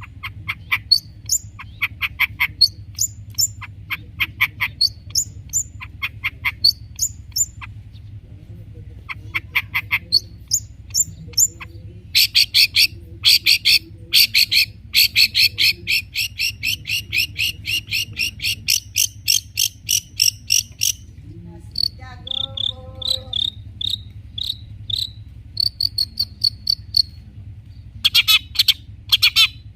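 Long-tailed shrike singing a fast, varied song of sharp repeated chips and long rattling trills, with a run of short whistled notes later on, mimicking other birds such as fighting sparrows. A steady low hum runs underneath.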